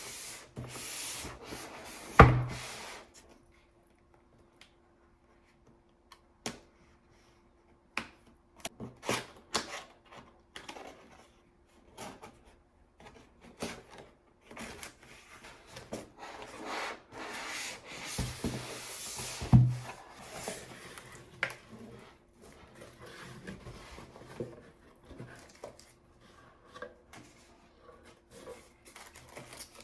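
Cardboard box and packaging being handled during unboxing: irregular scraping and rustling with scattered clicks and knocks, the loudest knocks about two seconds in and again about twenty seconds in.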